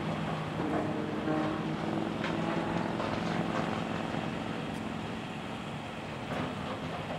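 Heavy diesel machinery running: excavator engines and a tracked mobile rock crusher. An engine note strengthens about half a second in as it works under hydraulic load, with a few sharp clanks of rock.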